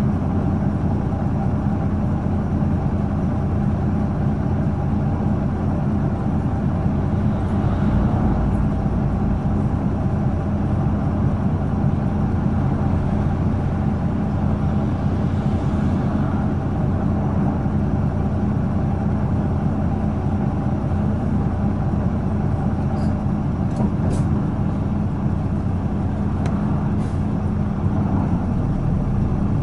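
Isuzu Erga PJ-LV234N1 city bus's diesel engine heard from on board, running at a steady engine speed with a constant drone. A few light clicks come in the last several seconds.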